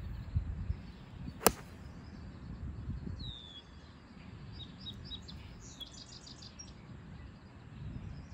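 A pitching wedge strikes a golf ball once with a single sharp click about a second and a half in. Birds call in short high notes over a low wind rumble on the microphone.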